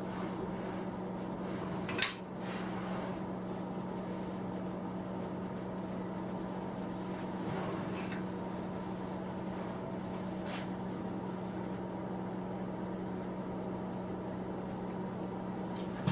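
Metal parts and tools clinking and clanking as a milling machine is being reassembled, with one sharp clank about two seconds in and a few fainter clinks later, over a steady electrical hum.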